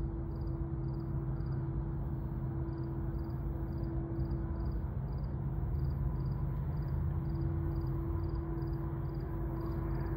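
Diesel locomotive of a Norfolk Southern freight train running steadily, a low engine rumble with a steady hum. An insect chirps high and regularly over it, about two or three times a second.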